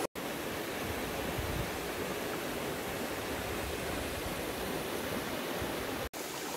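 Small forest waterfall and stream running into a rocky pool: a steady rush of water. It cuts out briefly just after the start and again about six seconds in.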